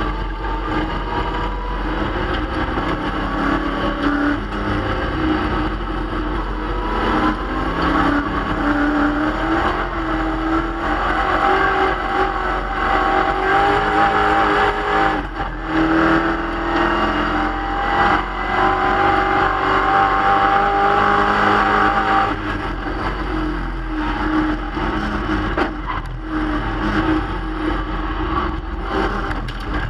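1965 Plymouth Barracuda race car's engine under hard acceleration, heard from inside the stripped cabin. Its pitch climbs steadily, drops back sharply once midway at a gear change, climbs again, then falls away lower about two-thirds of the way through as the throttle eases.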